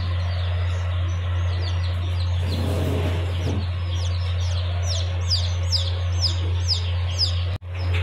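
Young chicks peeping: thin, high, downward-sliding chirps that come in a quick run over the second half, over a steady low hum. The sound drops out for a moment near the end.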